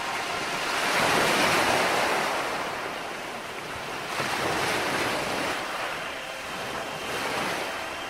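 Waves washing onto a sandy shore in three swells, the first and loudest about a second in, the next around four to five seconds in, and a weaker one near the end.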